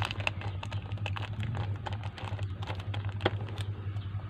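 A clear plastic sheet being handled, giving irregular crinkles and sharp clicks, the sharpest a little after three seconds in, over a steady low hum.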